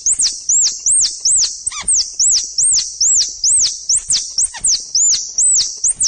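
Recorded plantain squirrel (coconut squirrel) calls played as a hunting lure: a rapid, even run of sharp, high chirps, about two and a half a second, each rising and then dropping in pitch. The call is a mix of squirrel mating and fighting calls, meant to draw squirrels in.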